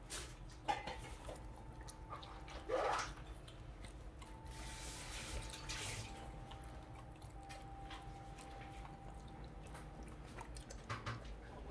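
A Jindo dog eating soft tofu and licking the plate: wet smacking and lapping with scattered short clicks, loudest about three seconds in.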